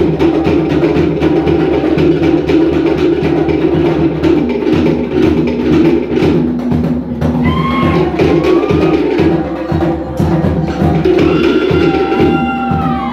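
Live Cook Islands drum ensemble playing a fast, driving drum-dance rhythm, with rapid sharp strikes on wooden slit drums (pate) over deeper drums. A couple of high sliding tones sound over the drumming about halfway through and again near the end.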